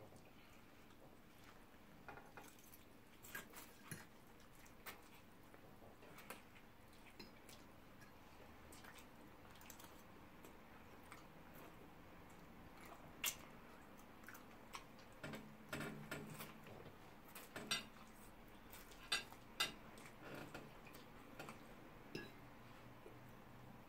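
Metal forks clinking and scraping on ceramic plates as spaghetti is twirled and eaten: scattered light clicks, with a few sharper ones in the second half.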